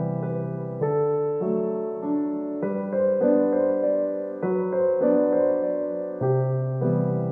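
Background music: a slow, gentle solo piano piece, sustained chords changing about once a second under a soft melody.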